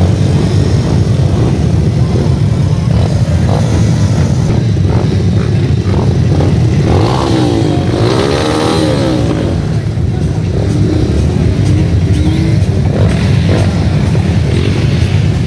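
Several motocross dirt bikes idling together on a start line, with throttles blipped now and then. About seven seconds in, one engine revs up and down several times.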